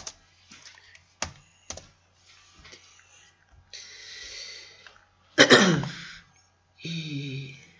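Computer keyboard keystrokes and mouse clicks. Then a person coughs loudly once about five and a half seconds in, and clears the throat near the end.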